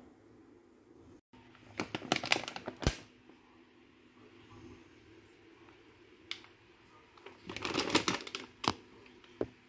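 Two bursts of quick clicking and scraping, one about two seconds in and one about eight seconds in, with a single click between them; the second burst is a spoon scraping and tapping in a glass jar of oats.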